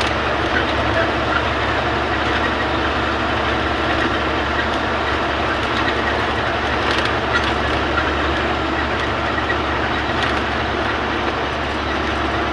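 Truck driving at speed, its diesel engine and road noise heard as a steady, loud rumble from inside the cab.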